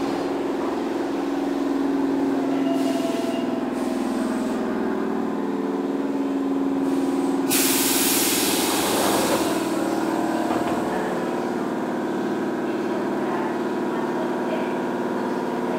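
Keihan 2600 series electric train car running, heard from inside the car: a steady rumble with a running hum, and bursts of compressed-air hiss, a short one about three seconds in and a longer, louder one about seven and a half seconds in.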